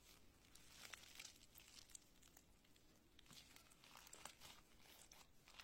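Faint sticky crackles and pops of purple glitter slime studded with foam balls being squeezed and pressed by hand, coming in small clusters about a second in and again around three to four seconds.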